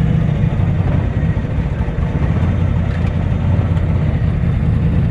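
Twin-turbocharged big-block Chevy V8 of a 1966 Chevelle running under way, a steady low rumble.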